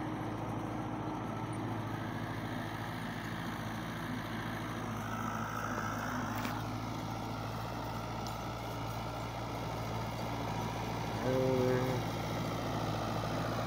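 Diesel farm tractor engine running steadily under load while pulling a cultivator across a field. A brief louder pitched sound comes about eleven seconds in.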